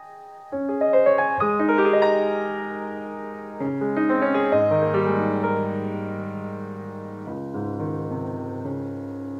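Background piano music: notes and chords struck every second or two, each ringing and fading away.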